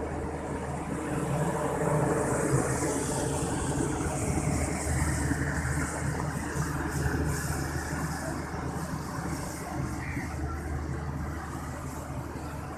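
Passenger train pulling slowly out of a station: its coaches roll past with a steady low engine hum and a hiss of wheels on rail, and a few light clicks midway.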